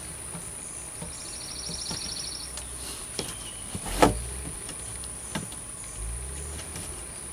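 Quiet outdoor ambience with a steady high whine and a short rapid chirping trill about a second in, over light handling knocks and rustles as old sealer tape is peeled off a plastic RV door-window frame; the loudest knock comes about four seconds in.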